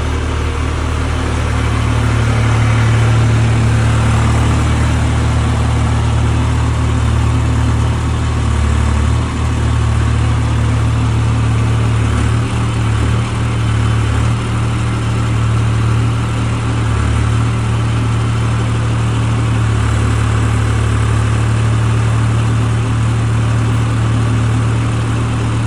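Mini excavator engine running steadily while digging, a continuous low hum that dips and wavers briefly several times as the load changes.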